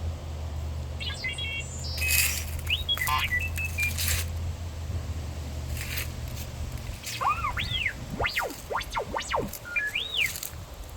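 R2-D2 beeps, chirps and warbling whistles played through a replica droid's sound system: rising and falling glides and arching chirps scattered through, with a few short noisy bursts. Under them a low steady hum stops about seven seconds in.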